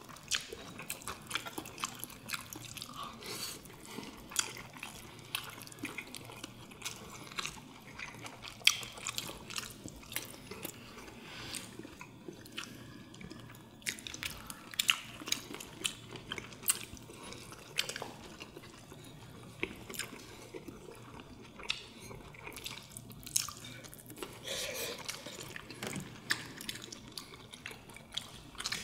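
Close-miked eating: chewing and wet mouth sounds, with chopsticks clicking and tapping irregularly against ceramic plates and bowls.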